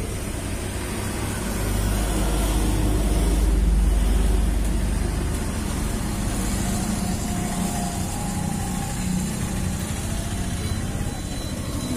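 Low rumble of an engine running, swelling to its loudest about two to five seconds in, then easing back to a steady level.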